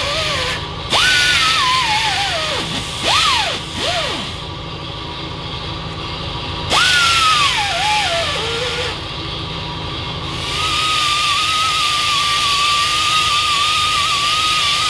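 Pneumatic air grinder with a cleaning wheel scrubbing corrosion off a trailer wheel hub's pilot edge, where the brake drum and wheel centre. It runs in several short bursts, its whine jumping high when triggered and dropping in pitch as it bites into the metal, then runs steadily from about two-thirds of the way through.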